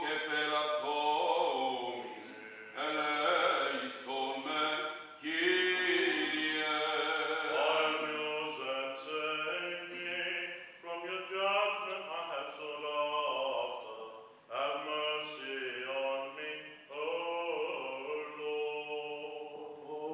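A man chanting unaccompanied Byzantine chant of the Greek Orthodox funeral service, long sung phrases with short breaks between them.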